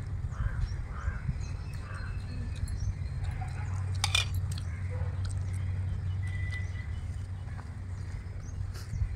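Eating by hand off banana leaves: fingers tearing idli and scraping curry across the leaf, with scattered small clicks and one sharp click about four seconds in, over a steady low rumble.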